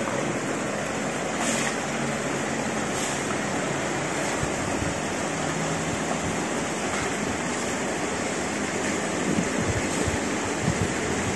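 Steady rushing noise, with a few low bumps near the end.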